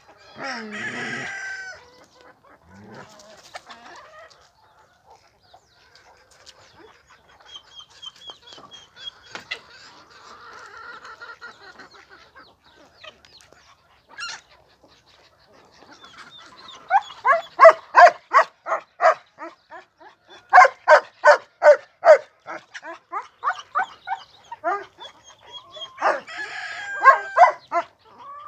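Chickens calling. A long drawn-out call comes about a second in and another near the end. In between, from just past halfway, there is a loud, rapid run of short clucks, about three a second, lasting several seconds, with scattered quieter calls elsewhere.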